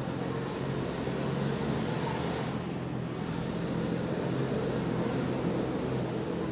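A steady mechanical drone, like a running engine or motor, with a low, even hum.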